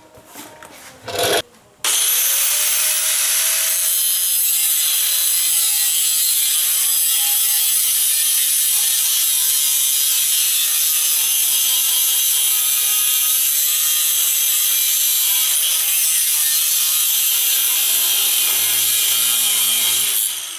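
Electric angle grinder with a cut-off wheel spinning up about two seconds in, then cutting into a steel car frame rail with a steady, loud, high-pitched grinding until it stops just before the end.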